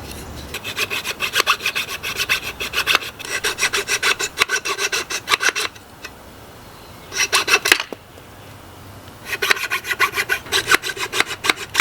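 Quick back-and-forth rasping strokes of a hand tool on wood, about five or six strokes a second, in bursts of a few seconds with short pauses between.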